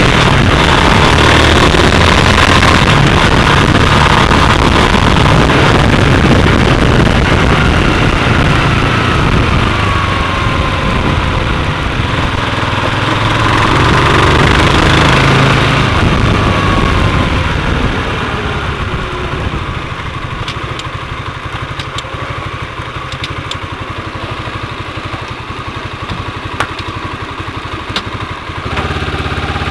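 Honda CBR150R's single-cylinder engine running as the bike is ridden, with loud rushing noise from the side-mounted camera moving through the air. About two-thirds of the way through, the engine note falls and the overall noise drops as the bike slows, with a few sharp clicks after that.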